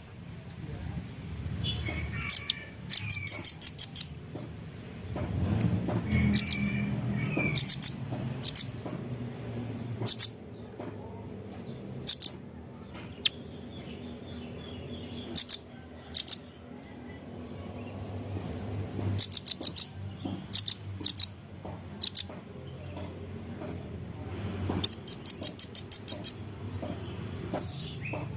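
Velvet-fronted nuthatch (rambatan paruh merah) calling: short bursts of rapid, sharp, very high chips, several times over, with single chips between them.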